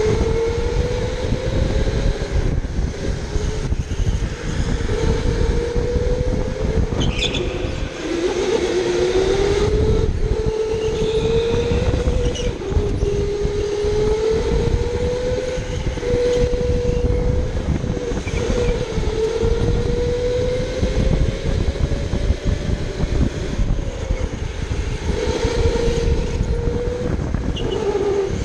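Electric go-kart motor whining as the kart laps the track, its pitch sliding up and down with speed, dipping about eight seconds in as the kart slows for a corner and climbing again as it accelerates, over a rough low rumble of the kart's vibration.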